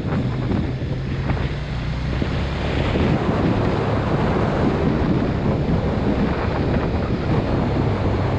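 Wind buffeting the camera microphone while a motorcycle cruises, its engine running steadily underneath the rush of air.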